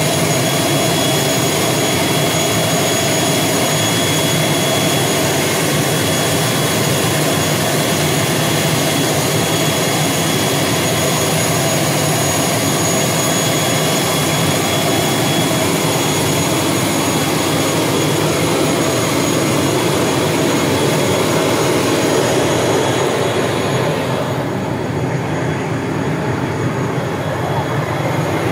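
Turboprop airliner engine running: a steady rush with a constant high turbine whine on top. About three-quarters of the way through, the high whine fades and the sound turns duller and slightly quieter for a few seconds.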